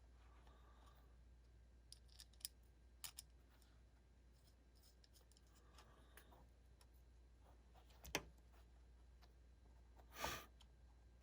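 Faint clicks and light scraping of small metal parts of a folding knife and tools being handled during reassembly: a few light clicks two to three seconds in, a sharper click about eight seconds in, and a short scrape near the end.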